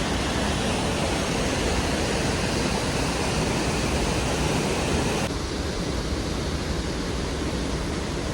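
Waterfall rushing: a steady, dense hiss of falling water close by, dropping a little in level about five seconds in.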